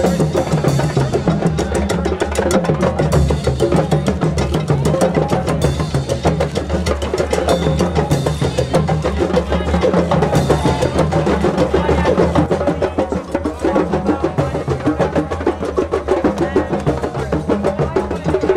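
Drum circle: many djembes and other hand drums played together in a dense, fast, unbroken rhythm.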